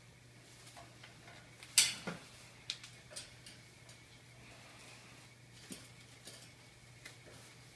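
Young blue-and-gold macaw scrambling and flapping on a low metal perch bar. There is a sharp clatter about two seconds in, followed by a few lighter knocks and taps.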